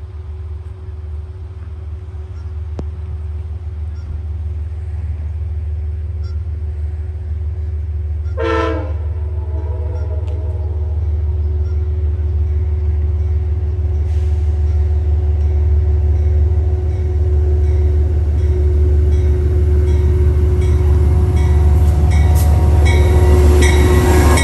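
Amtrak Genesis P32AC-DM diesel locomotive 702 approaching with its passenger train, the rumble growing steadily louder as it nears until it reaches the platform at the end. A brief horn note sounds about eight seconds in.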